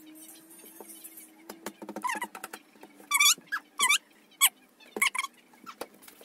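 A toddler's short, high-pitched squeals, several in quick succession from about two to five seconds in, with faint clicks and a low steady hum beneath.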